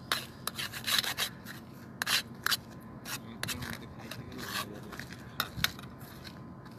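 Kitchen knife scraping and clicking against a metal frying pan while cutting a fried egg: a quick run of sharp scrapes in the first second or so, another cluster about two seconds in, then a few scattered strokes.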